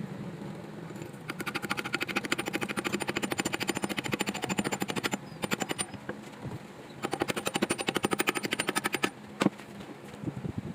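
Two runs of rapid, evenly spaced mechanical rattling, about ten strikes a second, the first starting about a second in and lasting some four seconds, the second shorter and coming later, over a steady low hum; a single sharp knock near the end.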